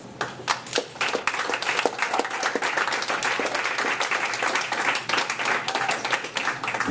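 Audience applauding: many hands clapping steadily at the end of a read piece, starting just after the opening and stopping at the very end.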